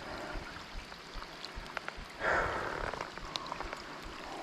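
River water sloshing and trickling around a muskie held in the shallows to revive it for release, with a louder swash a little over two seconds in and small drips and ticks throughout.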